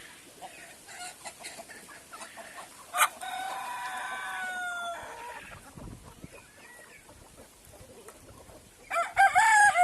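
Kadaknath roosters crowing: one long crow about three seconds in, a second starting near the end, with faint hen clucking in between.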